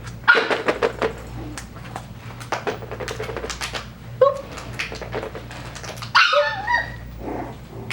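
Coton de Tulear puppy giving a short whimper about four seconds in and a louder, falling yip a little after six seconds, among a string of sharp clicks.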